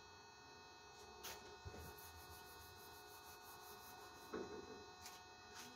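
Faint rubbing of a wooden-backed duster wiping a whiteboard in quick repeated strokes, with a couple of soft knocks, over a steady electrical hum.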